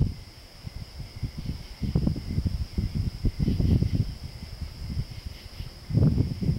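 Night insects chirring in a steady high-pitched chorus, under irregular low rumbling and buffeting on the microphone that grows heaviest near the end.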